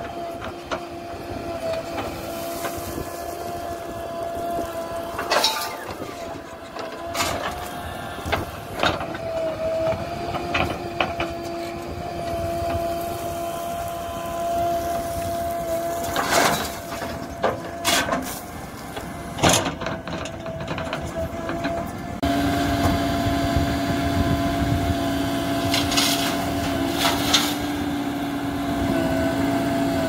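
JCB 3DX backhoe loader's diesel engine running steadily under load while the bucket digs, with scattered clanks and knocks from the bucket and stones dropping into the steel tipper body as loads of murum are dumped. About two-thirds of the way through, the engine note shifts lower and gets louder.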